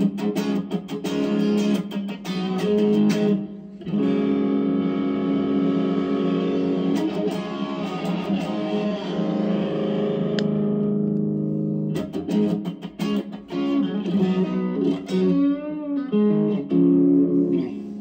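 Electric guitar played through a BJpress Soul Clone, a Klon Centaur-style overdrive pedal, switched on, into a Fender Mustang amp's VOX AC30 simulation. Picked notes and chords give way to a long held chord, then single-note licks with a wavering vibrato bend near the end.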